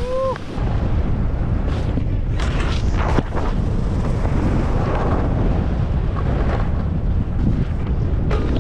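Wind buffeting the camera microphone during a fast downhill run on snow, a steady heavy rumble with a few brief scrapes mixed in. A rider's whoop tails off just at the start.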